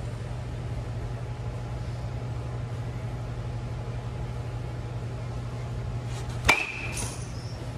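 A baseball bat hits a ball off a batting tee about six and a half seconds in: one sharp crack with a short ringing ping, followed by a fainter knock. A steady hum from large fans runs underneath.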